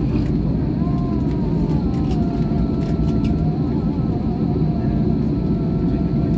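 Inside a jet airliner's cabin on the landing rollout: a steady deep rumble of wheels and rushing air, with a faint engine whine that slides down in pitch a second or two in as the aircraft slows after touchdown.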